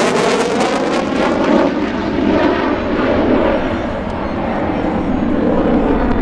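Twin-engine jet roar from a CF-18 Hornet's General Electric F404 turbofans during its vertical climb. It is loud and steady with a wavering, swirling quality, easing slightly about four seconds in.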